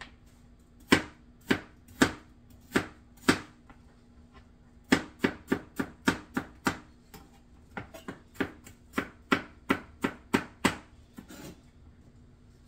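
Chef's knife chopping stacked peeled apple slices, each stroke knocking on the cutting board. Five sharp strikes come about half a second apart, then after a short pause a quicker run of about three knocks a second that stops about a second before the end.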